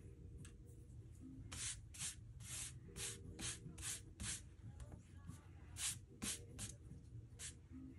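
Quick rubbing strokes on watercolour paper, about three a second, with a short pause partway through before a few more strokes.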